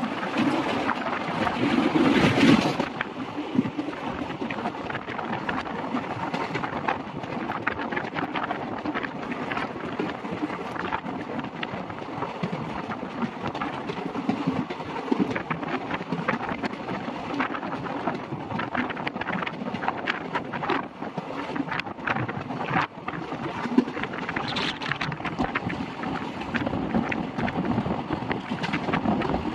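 Express passenger train running at speed, heard from its open door: a steady rush of wheels on rails and wind, with scattered short clicks from the running gear. It is louder for the first two or three seconds while crossing a bridge over water.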